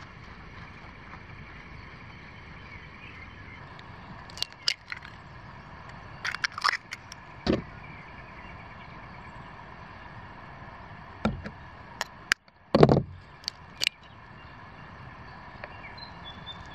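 Hands preparing food with a kitchen knife on a tabletop: scattered sharp taps and clicks of the knife, bread and egg, in two clusters, the loudest a dull knock near the end, over a steady background hiss.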